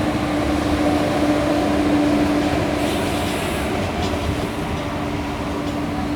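Electric-hauled express train running on the track, a steady din of wheels and coaches with a steady droning tone through it, strongest over the first two and a half seconds.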